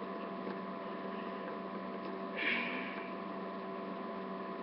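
Steady electrical hum made of several constant tones, with a brief soft hiss about two and a half seconds in.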